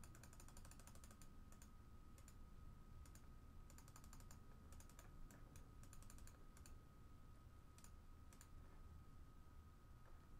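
Faint typing on a computer keyboard: quick clusters of light key clicks, over a faint steady electrical whine.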